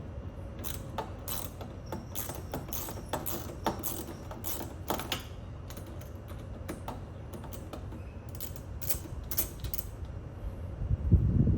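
Irregular metallic clicks and clinks of hand tools working on a car battery terminal to disconnect the battery, with a louder low bump near the end.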